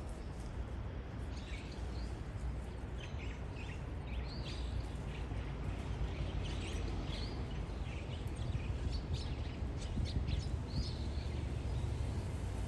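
A small flock of Eurasian tree sparrows chirping, many short high calls overlapping, starting about a second and a half in, over a steady low background rumble.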